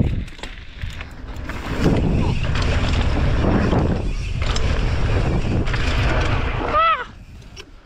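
Wind rushing and buffeting over the microphone while moving fast, loud and uneven. Near the end comes a short rising-and-falling whoop, and then the rush drops away.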